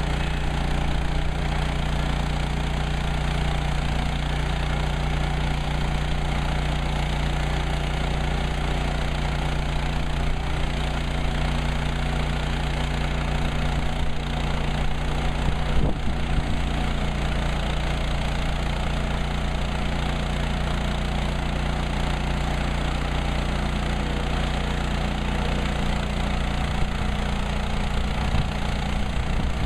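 Woodland Mills HM130MAX portable band sawmill's gas engine running steadily, with a single knock about halfway through.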